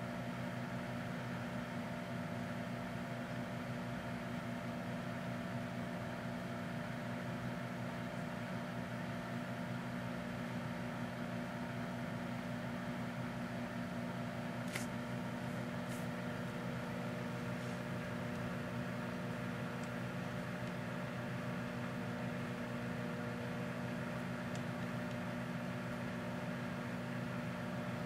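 Proctor Silex countertop microwave oven running with a steady hum. Two faint clicks come about halfway through.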